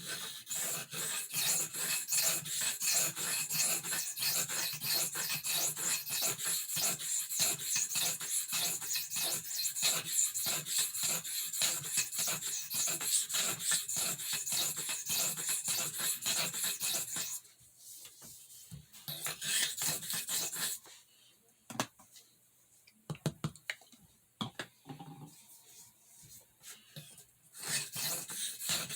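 Knife blade stroked over a soft Arkansas whetstone: a steady run of rasping, hissing strokes. About two-thirds of the way through the strokes grow faint and stop, leaving a quiet stretch with a few light clicks, and the stroking starts again near the end.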